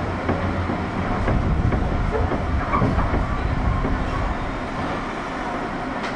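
Running sound inside the motor car of a JR 201 series chopper-controlled electric train: a steady rumble with the wheels clicking over rail joints now and then.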